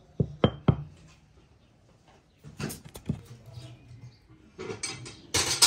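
Three quick knocks as a drinking glass is pressed through dough onto a floured wooden board, the glass ringing faintly on two of them. Scattered handling noises follow, then a louder brief rustling clatter near the end.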